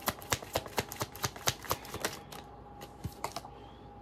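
A tarot card deck being shuffled by hand: quick clicks and flicks of cards, about four or five a second for the first two seconds, then sparser.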